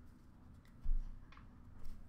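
Trading cards and packs being handled on a glass counter: a dull thump about a second in, followed by a few light clicks and rustles.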